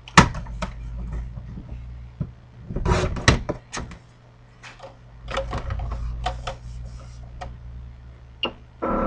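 A sheet of white paper being handled and rustled, with scattered taps and a run of short clicks near the middle, over a low steady hum.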